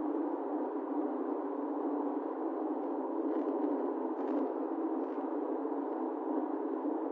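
Steady road and engine noise inside a moving car, picked up thin and muffled by a dashcam microphone, with a few faint clicks about halfway through.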